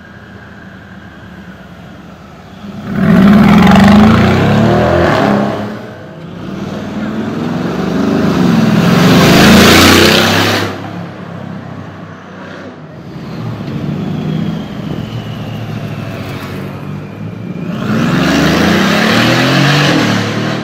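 Loud engines of Mercedes-AMG G-Class (G-Wagon) SUVs accelerating past, three times: a sudden loud burst about three seconds in, a longer rising pull that peaks around ten seconds, and another loud pass near the end, with engine hum between.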